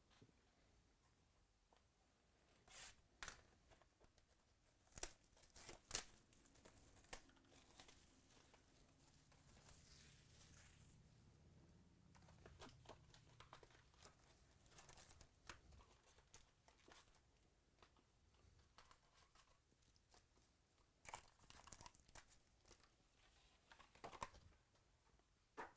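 Faint tearing and crinkling of trading-card pack wrappers being ripped open and handled, with scattered sharp crackles, the loudest a few seconds in and again near the end.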